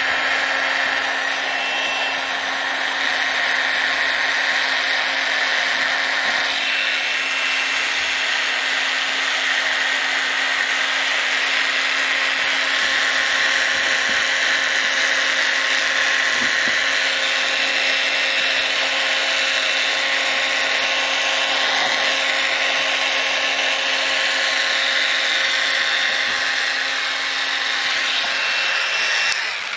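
Handheld electric rotary tool running at high speed with a steady whine, its bit grinding old araldite epoxy off the brass Boulle inlay. It cuts off just before the end.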